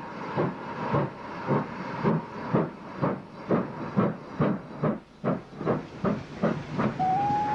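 GWR 45xx-class Prairie tank steam locomotive working a train, its exhaust beating in a steady rhythm of about two beats a second that quickens slightly. Its steam whistle sounds near the end, bending up in pitch and then holding.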